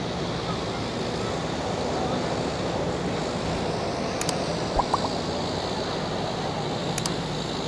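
A heavy-equipment diesel engine running steadily under a constant wash of noise, with a few sharp clicks about halfway through.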